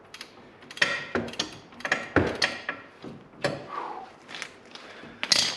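Irregular metal clanks and knocks, about eight in five seconds, some with a brief ring: hand tools knocking against metal parts.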